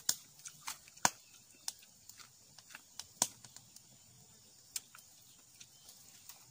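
Small wood fire crackling, with scattered sharp irregular pops and clicks over a quiet background.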